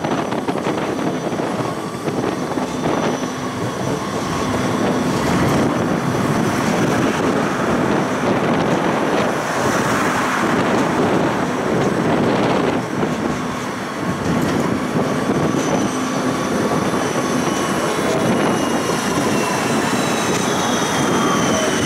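Siemens Combino tram running along its rails: a steady rumble of wheels on track with a low hum from the drive. Near the end, a thin high-pitched wheel squeal comes in, bending in pitch.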